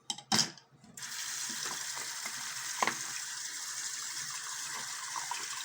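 Water running from a tap, turned on about a second in and running steadily, with one brief knock near the three-second mark.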